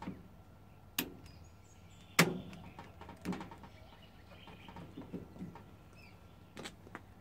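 A few sharp clicks, the loudest about two seconds in, from the toggles of DIN-rail circuit breakers being flicked and handled, over a faint steady hum.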